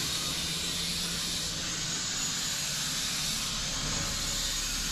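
A steady, even hiss with no breaks or changes.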